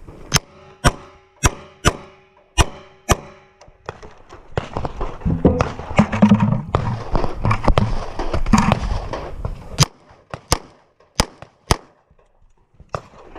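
Handgun shots fired in a string during a pistol match stage: six shots about half a second apart, then a few seconds of clatter and movement noise with more shots among it, then four or five more spaced shots near the end.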